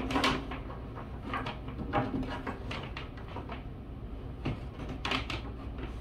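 Scattered light knocks, clicks and rustling of a power cord being handled and plugged into an extension cord, about half a dozen separate knocks spread through the stretch.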